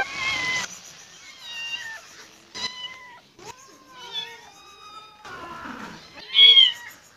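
Cats meowing repeatedly, a string of separate high-pitched meows, the loudest one near the end.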